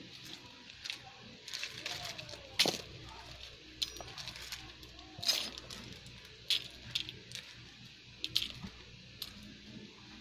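Loose buttons clicking and clinking together as they are picked out of a pouch and dropped onto fabric: a scatter of light, irregular clicks.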